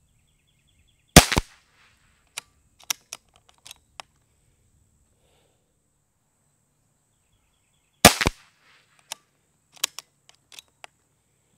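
Two shots from a Brocock Grand Prix S6 .22 PCP air pistol, each a sharp crack, about seven seconds apart. After each shot come several light clicks as the repeating action is worked to chamber the next pellet.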